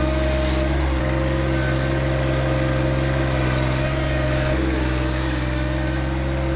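John Deere 1025R compact tractor's three-cylinder diesel engine running steadily while the loader works, with a thin steady whine above the engine note.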